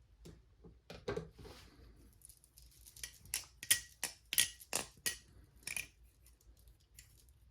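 Jason Lyons Slimline balisong clicking and clinking as its handles are swung open and shut, a series of sharp irregular metal clicks, a few of them ringing briefly.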